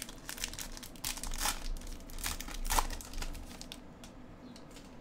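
Baseball card pack wrapper being torn open and crinkled: a dense run of crackles for about the first three and a half seconds, then lighter rustling as the cards are handled.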